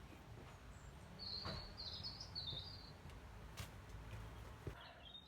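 A bird chirping: a quick run of high chirps about a second in and another near the end, over a faint low hum, with a few faint clicks.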